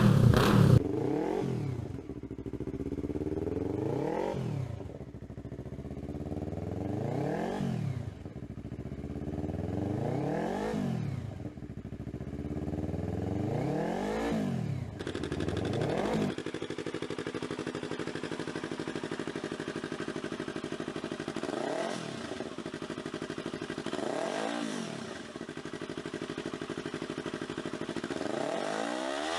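Yamaha YZF-R3's parallel-twin engine being revved repeatedly, its pitch climbing and falling back about five times, roughly once every three seconds. It then idles steadily, with three short throttle blips in the later part.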